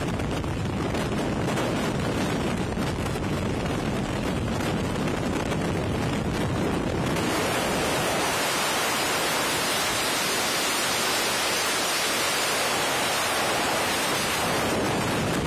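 Strong wind rushing over the microphone, a steady loud hiss. About seven seconds in it turns brighter and hissier.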